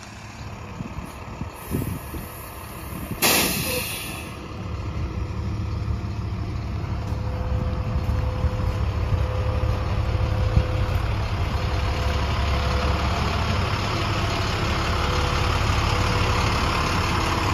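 School bus engine running steadily, with a sharp release of air from its air brakes about three seconds in. The engine grows louder after that and holds steady.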